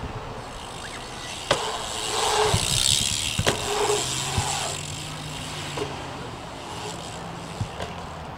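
BMX bike tyres rolling across a concrete skatepark bowl, a rush that swells and fades over a couple of seconds, with a couple of sharp clacks from the bike. A low steady hum comes in about halfway through.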